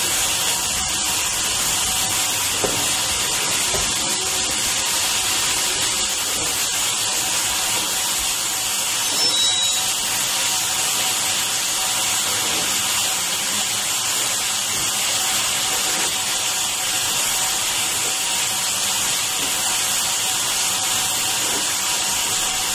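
Steady, continuous hiss of escaping steam.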